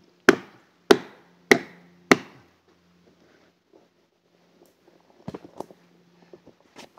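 Four sharp blows, about half a second apart, driving a plastic felling wedge into the back cut of an Eastern White Cedar stem to push its back lean over the hinge. A few fainter knocks follow about five seconds in.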